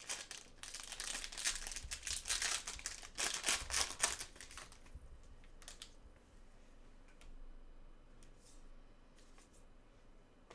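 Plastic trading-card pack wrapper being torn open and crinkled for the first four seconds or so, then a few faint ticks as cards are handled.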